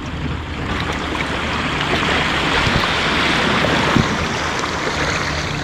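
Small sea waves washing and sloshing over shoreline rocks, the rush of water swelling about two seconds in and ebbing toward the end, with a single light knock about four seconds in.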